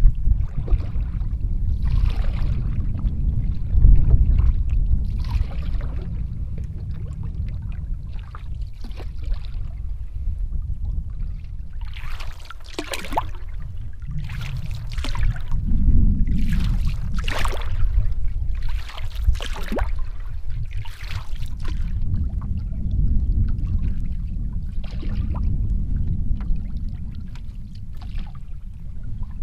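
Canoe paddle strokes: water swishing and dripping off the blade every second or two, over a steady low rumble of wind on the microphone.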